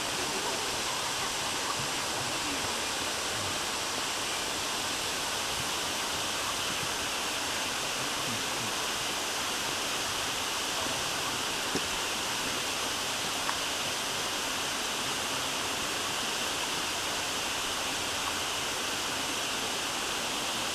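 Steady rushing of a waterfall, an even hiss.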